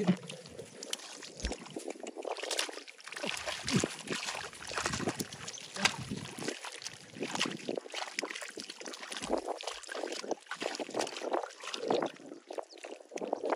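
Shallow water sloshing and splashing irregularly, one splash after another, as it is stirred by hand.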